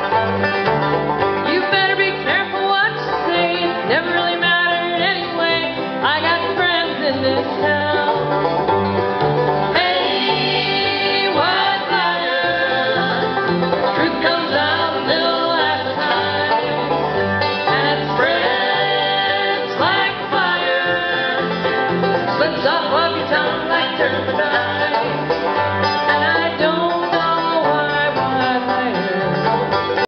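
A bluegrass band playing a song: banjo, acoustic guitar and upright bass keeping a steady bass rhythm, with a woman singing lead.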